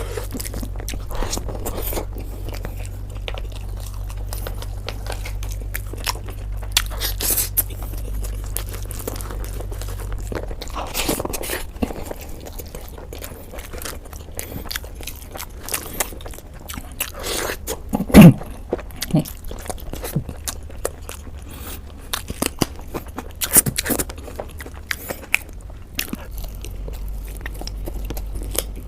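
Close-up chewing and biting of food by a person eating, with many small crunches and wet mouth clicks over a low steady hum. One short loud low sound stands out about 18 seconds in.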